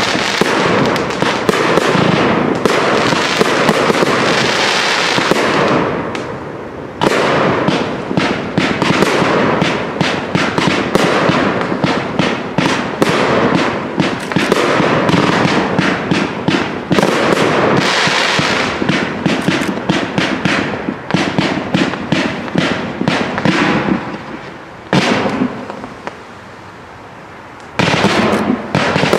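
Fireworks display firing in rapid salvos: a dense string of bangs and crackling from comets and bursting shells. It eases off briefly about six seconds in and again near the end.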